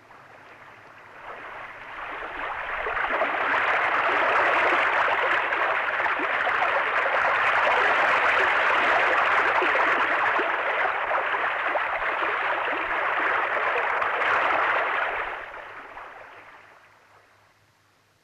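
Rushing water of a torrent, a fast-flowing stream. It swells up over the first few seconds, holds steady, then fades away a few seconds before the end.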